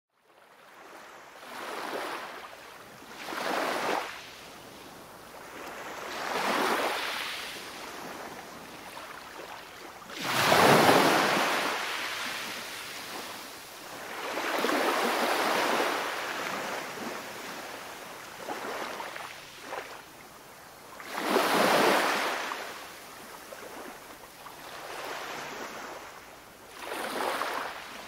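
Ocean waves surging and washing back in slow swells every few seconds, fading in from silence at the start. The strongest surges come about a third and three quarters of the way through.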